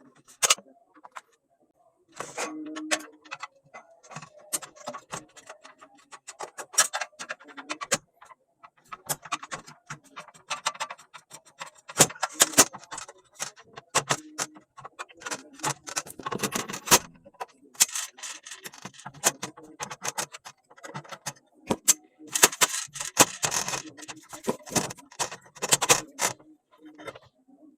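Irregular clicks and clatter of hand tools and small metal parts being handled while a welding machine is taken apart.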